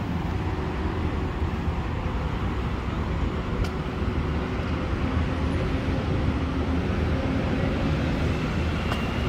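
Steady city street traffic: a continuous low rumble of passing road vehicles, with a couple of faint sharp ticks.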